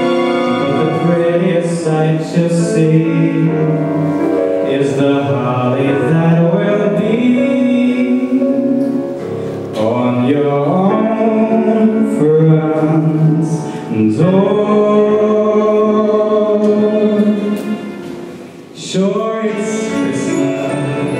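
A small group of voices singing a song together in harmony, with a brief pause near the end.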